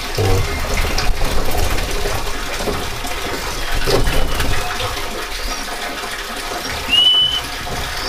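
A single short, steady whistled call from an oriental magpie-robin (kacer) sounds about seven seconds in, after a few fainter high squeaks. The breeder takes the calling for the female agitated at her opened nest. Beneath it are rustling of the nest's dry grass and a steady rushing noise like running water.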